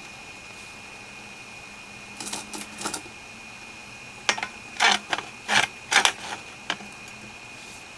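Metal cookware being handled for a boil test: a few light clicks, then a run of sharp clinks and rattles over about two seconds from a hard-anodised aluminium kettle and an alcohol stove. A faint, steady high-pitched whine sits under it all.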